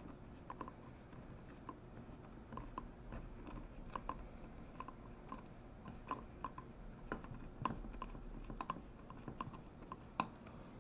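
Screwdriver driving the long pistol grip screw into a rifle's lower receiver: faint, irregular small clicks and ticks, several a second, as the screw is turned and tightened.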